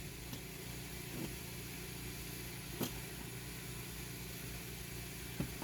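Steady low machine hum, like a motor running, with a few faint knocks.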